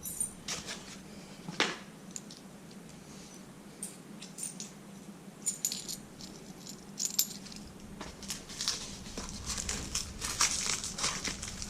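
Small metal screws and washers clinking and rattling as they are handled and gathered, with scattered light clicks, a cluster of them near the end.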